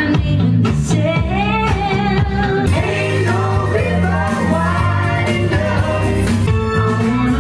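A woman singing a pop-rock song live through a microphone and PA, over loud amplified backing music with a bass line.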